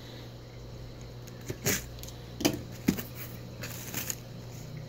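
Cardboard shipping box being opened by hand: packing tape pulled free and the flaps lifted, giving a few short sharp scrapes and cracks of cardboard and tape, over a steady low hum.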